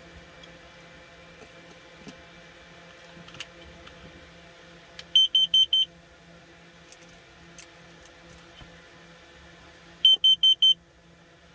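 Battery-powered carbon monoxide alarm beeping as it powers up, a quick run of short high beeps twice, about five seconds apart: its start-up self-test once the battery is connected.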